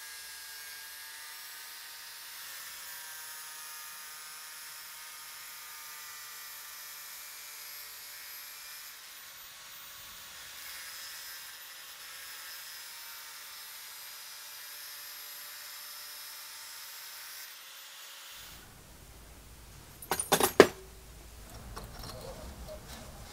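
Angle grinder running with a steady whine as the edge of a brass lure blank is ground against its disc. The whine stops about three-quarters of the way through, and a brief cluster of sharp knocks follows.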